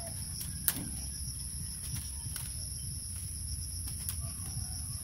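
Steady high-pitched insect trilling, with a few sharp clicks of dry bamboo strips knocking and bending as they are woven into a basket. The loudest click comes just under a second in.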